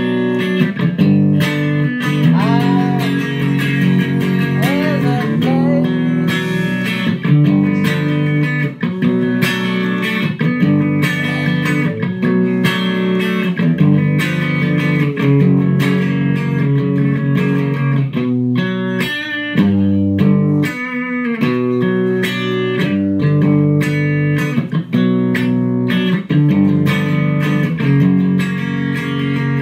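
Telecaster-style electric guitar being played: continuous lead lines with bent notes over a steady, full low accompaniment.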